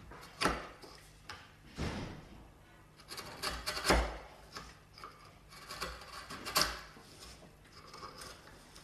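Bench chisel pushed down by hand, without a mallet, into the end grain of a mortise: several irregular crisp cracks and short scraping cuts as it pares the end wall to the marked line.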